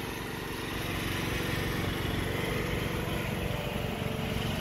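Champion inverter generator's engine running steadily, heard from across the yard.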